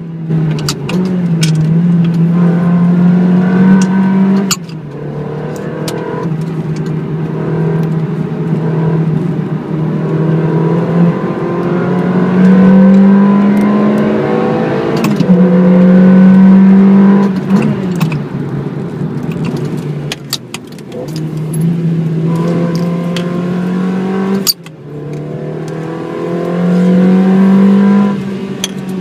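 Ferrari 360 Modena's V8 engine, heard from inside the cabin, pulling hard through the gears. Its pitch climbs slowly and then drops sharply at each upshift, about five times.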